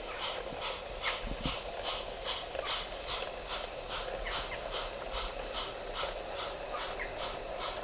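Battery-powered garden-railway model steam locomotive, a 15 mm scale narrow gauge loco, chuffing slowly and evenly at about four beats a second with a steady hum beneath. The chuff comes from an electronic sound unit, as the loco runs on battery power and not live steam, while it hauls loaded sand hoppers at a crawl.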